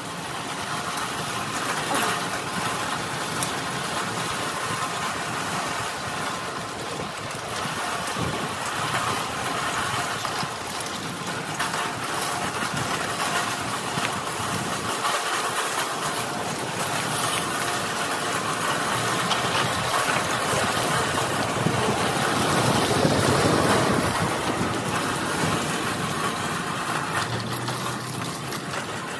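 Steady rolling and rattling of a red steel-mesh utility wagon towed over cracked asphalt, with occasional knocks from bumps, growing a little louder about three-quarters of the way through.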